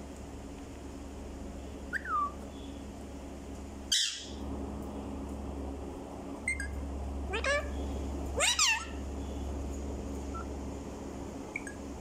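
Alexandrine parakeets giving short whistled calls that slide up and down in pitch, scattered through the stretch with a louder pair about eight and a half seconds in. A sharp, noisy burst comes about four seconds in, over a steady low hum.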